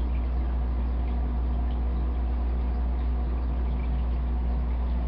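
Aquarium filter running: a steady low hum under a constant trickle of water with small drips.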